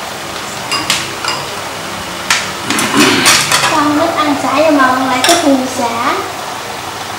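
Chopsticks and a spoon clicking against bowls and a metal serving pan while eating. The clicks come singly at first, then in a quick cluster about three seconds in, followed by a person's voice for a couple of seconds.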